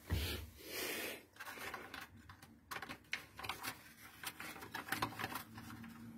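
Crinkling and rustling of a coated paper sheet being pressed by hand onto the heating plate of a PVC window welding machine, with a burst of rustling in the first second and many scattered light clicks after.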